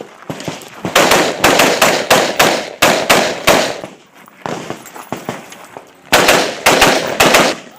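AR-15 rifle in .223/5.56 fired rapidly, about three shots a second. There are two quick strings of roughly a dozen and half a dozen shots, separated by a pause of a couple of seconds.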